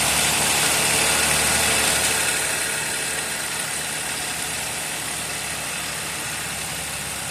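Chevrolet Montana's 1.2 turbo three-cylinder engine idling steadily, easing slightly quieter about two seconds in. It carries the knocking noise the owner complains of and likens to piston-skirt slap, which the dealer calls normal for three-cylinder engines.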